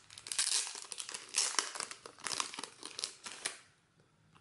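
Clear plastic bag crinkling as hands open it and slide out sticker sheets, a dense crackle of many small clicks that stops about three and a half seconds in.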